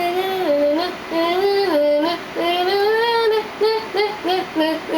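A woman singing a wordless, playful tune: held notes that step up and down in short phrases, then a run of quick short notes near the end.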